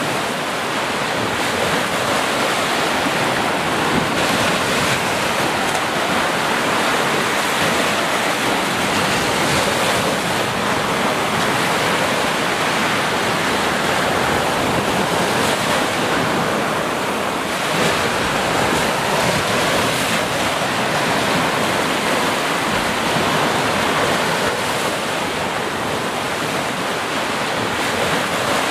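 Small ocean waves breaking and washing up a sandy beach: a steady rush of surf that swells and eases only slightly.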